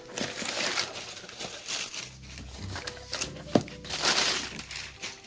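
Crumpled brown kraft packing paper rustling and crinkling in irregular bursts as a hand digs through it inside a cardboard shipping box, with one sharp knock a little past halfway.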